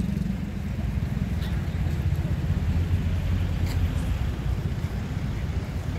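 Low, unsteady rumble of wind buffeting a handheld phone's microphone outdoors, with a few faint ticks.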